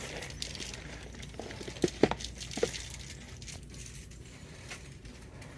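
Three light clinks close together about two seconds in, each with a brief ring, over a steady low hum.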